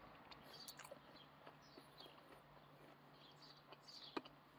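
Near silence: faint room tone with a low steady hum and a few soft scattered clicks, one a little sharper about four seconds in.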